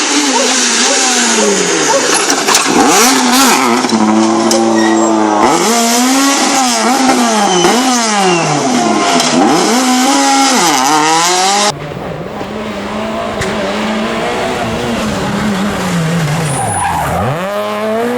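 Super 2000 rally cars at full attack, their naturally aspirated four-cylinder engines revving hard, with the pitch climbing and dropping sharply through gear changes and lifts. About two-thirds of the way in the sound cuts abruptly to another car passing, quieter.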